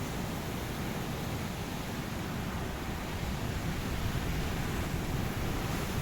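Ocean surf washing onto a beach: a steady, even rush of breaking waves that swells slightly about two-thirds of the way through.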